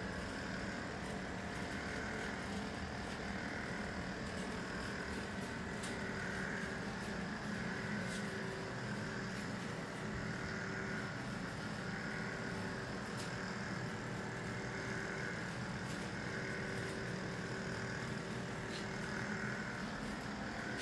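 Steady mechanical hum, with a higher band in it that swells about every two seconds.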